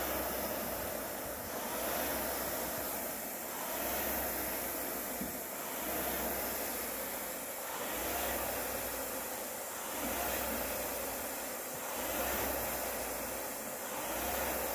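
Concept2 indoor rowing machine's air-resistance flywheel whirring, swelling with each drive stroke about once every two seconds during a hard 2 km piece.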